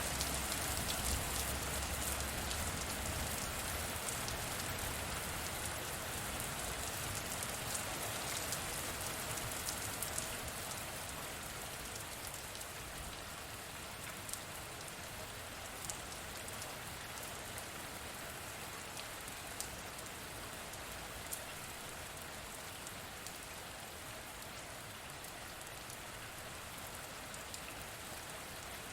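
Steady heavy rain, with scattered drops ticking sharply over the constant wash. A low rumble under the rain in the first several seconds dies away, and the rain settles a little quieter after about ten seconds.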